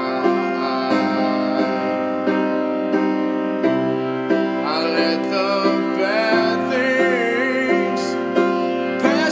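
Piano-led music: steady chords re-struck at an even pulse, joined about halfway through by a melody line that wavers and slides in pitch.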